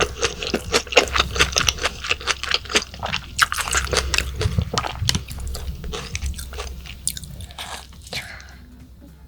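Close-miked chewing of raw yellowtail sashimi: rapid wet mouth clicks and smacks that thin out and fade near the end.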